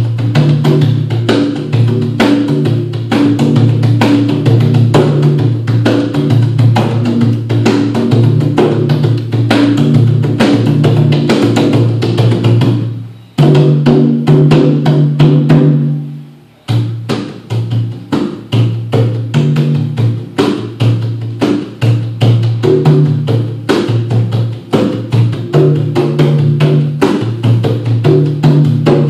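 Three conga drums played by hand in a fast, steady rhythm of low drum tones. About halfway through the stroke pattern breaks for a few seconds before the rhythm picks up again.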